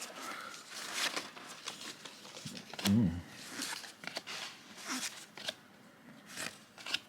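Cardboard baseball cards being handled and flipped through, with light rustling and soft card-on-card clicks at irregular moments.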